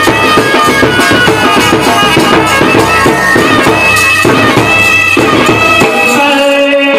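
Indian street band playing: bass drum and side drums beaten in a fast, dense rhythm under a loud reedy wind-instrument melody. Near the end the drums drop out briefly, leaving the wind instruments holding a note.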